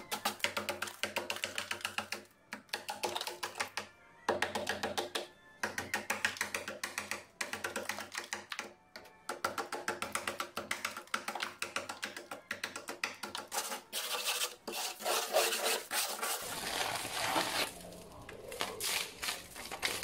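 Frost and ice being scraped off the inside wall of a chest freezer in rapid, scratchy strokes, in runs broken by short pauses. Music plays faintly underneath.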